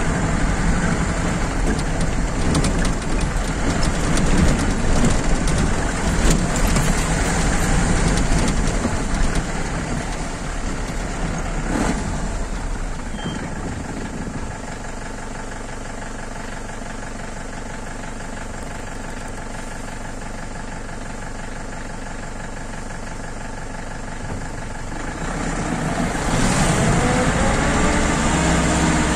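A motor vehicle engine running: loud and rough at first, then a steadier, quieter hum, with its pitch rising and falling as it gets louder near the end.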